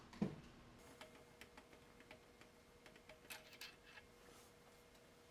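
A soft thump, then scattered light clicks and taps of metal tools being handled at a stopped milling machine, over a faint steady hum.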